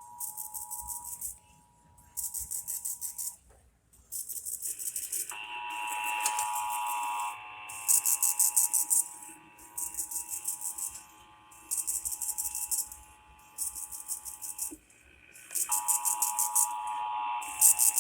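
Emergency Alert System two-tone attention signal (853 Hz and 960 Hz sounded together), breaking off about three seconds in and starting again, with a short gap near the end. Over it, a raspy, high-pitched buzzing burst repeats about every two seconds.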